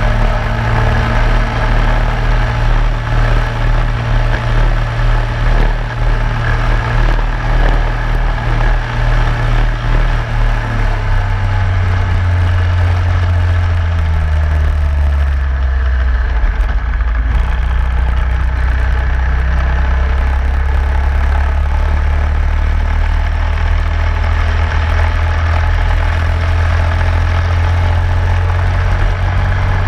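Racing kart engine running hard, heard from on board the kart. Its pitch drops for several seconds about a third of the way in, then holds lower and creeps back up toward the end.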